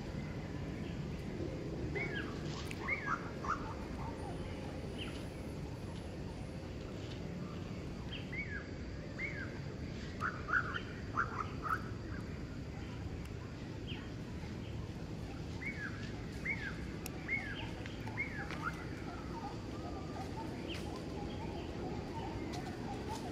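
Short, high, falling chirps, several in quick succession, coming in three clusters over a steady low background noise.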